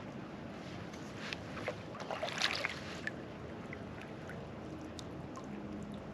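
Water splashing and small knocks around a kayak. A flurry of short splashes and clicks comes between one and three seconds in, over a steady background of moving water.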